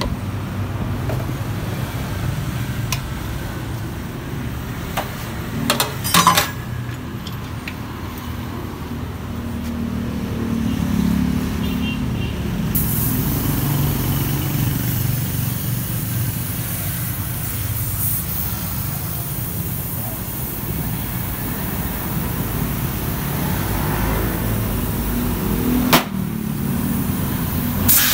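Steady rumble of passing road traffic, with a few sharp knocks about six seconds in and another near the end; a high hiss joins about halfway through.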